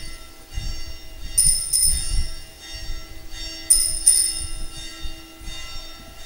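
Altar bells rung at the elevation of the consecrated host: small bells shaken in short double rings about two seconds apart, each ring fading out. A faint steady low tone lies beneath.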